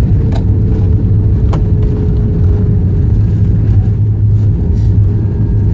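Loud, steady low rumble heard inside the cabin of an AirAsia Airbus A320-family airliner on its landing roll, ground spoilers deployed: engine and runway noise as the aircraft decelerates. A faint steady tone sits above the rumble, and two sharp clicks come about half a second and a second and a half in.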